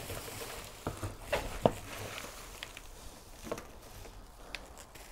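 Dry straw packing rustling and crackling as hands dig through it in a cardboard box, with a few sharp crackles about one to one and a half seconds in.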